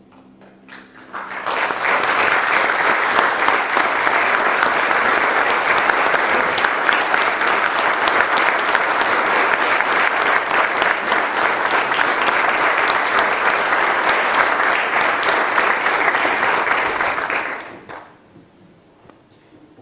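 Audience applauding. It swells in about a second in, holds steady, and dies away near the end, after the last held note of the piano and cello fades out at the start.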